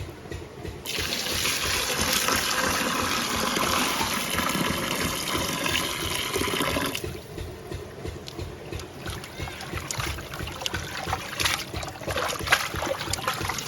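Water poured in a steady stream for about six seconds, then splashing and sloshing as duck meat is washed by hand.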